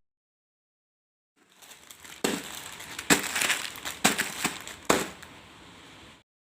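Plastic instant-noodle packets (Indomie Goreng) being crinkled and crushed by hand, with four sharp crackles among the rustling; it starts about a second and a half in and cuts off abruptly near the end.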